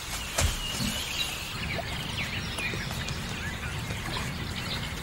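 Outdoor garden ambience: small birds chirping over a low, steady background rumble, with a single short knock about half a second in.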